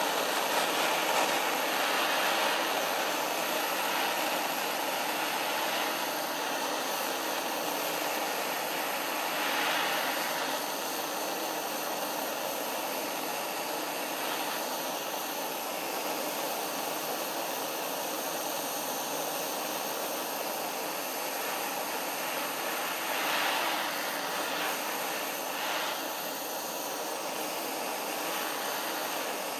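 Handheld butane-cartridge gas torch burning with a steady rushing hiss, its flame heating the aluminium gearbox housing of an angle grinder to free a seized screw.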